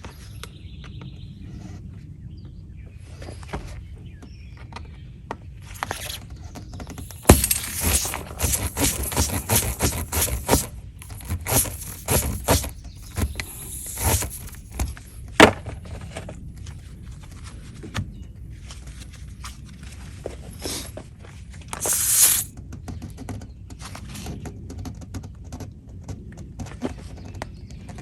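Tire plug repair tool being forced into a punctured tire: a dense run of rapid scraping and clicking from about seven to sixteen seconds in, a short scrape about twenty-two seconds in, and scattered ticks in between.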